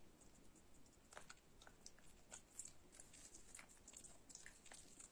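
Faint, irregular little crunches and clicks of a monkey gnawing kernels off a corn cob.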